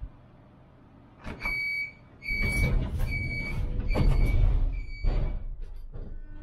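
Tram door warning signal beeping about five times, a high steady beep roughly every half second to second, as the sliding doors close, with knocks and a low rumble under it.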